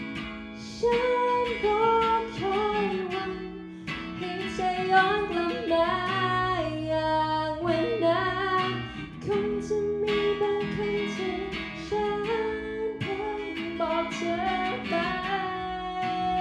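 An acoustic guitar is strummed and picked while a voice sings a melody over it.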